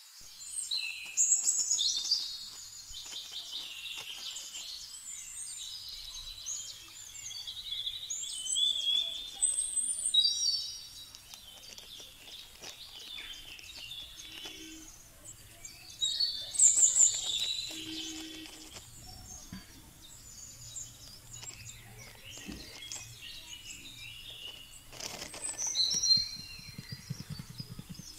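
Birds singing, several songs overlapping in quick high chirps and trills, swelling louder every several seconds.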